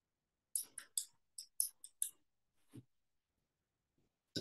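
A quick run of about seven sharp clicks over a second and a half, then a single duller low thump about a second later, and another sharp knock at the very end.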